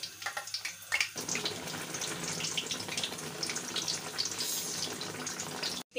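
Besan-battered naan frying in hot oil and ghee: a crackling sizzle that grows dense and loud about a second in as the naan is turned over onto its other side with a metal spatula, then holds steady and stops abruptly just before the end.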